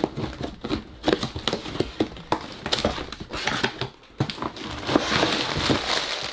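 Cardboard LEGO set box being opened by hand, with a run of short taps, scrapes and clicks as the lid and flaps are worked loose. From about five seconds in, the plastic bags of LEGO pieces crinkle as they are handled.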